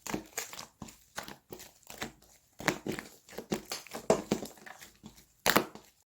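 Slime being squeezed and pressed in the hands: sticky squelches and crackling pops in quick irregular clusters, the loudest about five and a half seconds in.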